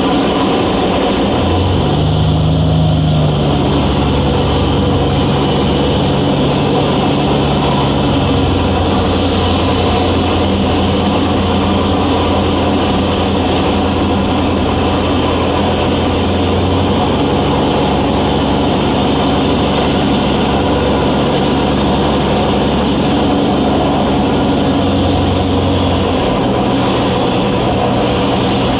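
Cabin noise of a Velocity S-FG's 180 hp pusher engine and propeller on final approach: a loud, steady drone whose low tone steps up and down several times as the power changes.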